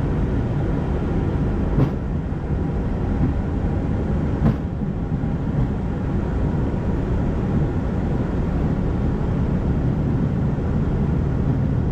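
Steady low rushing rumble in the flight deck of an Airbus A220-100 in flight, from airflow and engines, with two faint clicks about two and four and a half seconds in.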